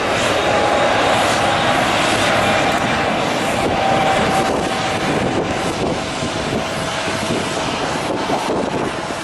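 Jet airliner engines running: a steady, loud rushing noise with a faint whine in it, easing off a little in the second half.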